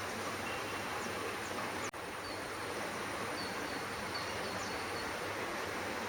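Steady outdoor background noise with faint, scattered high chirps and a thin steady high whine. The sound cuts out for an instant about two seconds in.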